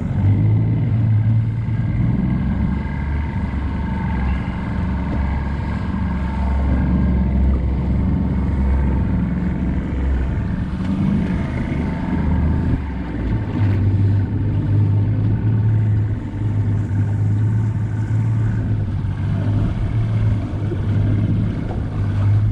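Tohatsu outboard motor running steadily with the boat under way, its low drone dipping briefly about halfway through and then picking up again.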